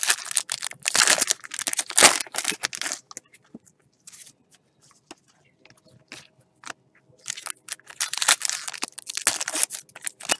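Topps Chrome trading cards handled and slid against one another in gloved hands, with the crinkle of opened pack wrappers. Quick bursts of rustling through the first three seconds and again in the last three, with only scattered small rustles in between.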